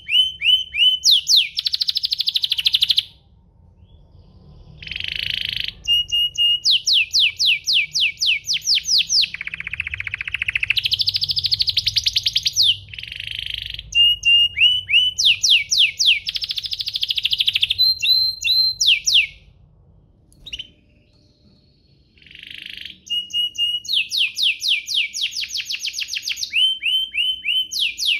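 Domestic canary singing: long phrases of fast trills made of rapidly repeated notes, with some buzzy held notes, broken by short pauses about four seconds in and again around twenty seconds in.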